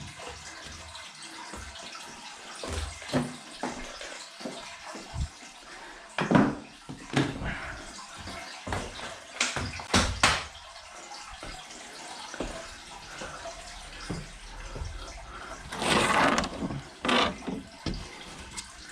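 Water running steadily as a leaking water storage tank is drained through a hose, with short knocks and clatter and a louder burst of noise near the end.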